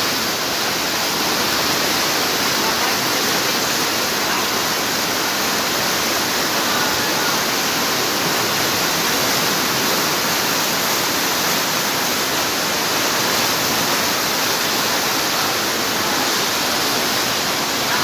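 Heavy rain pouring down in a steady, dense hiss, mixed with floodwater rushing along the street.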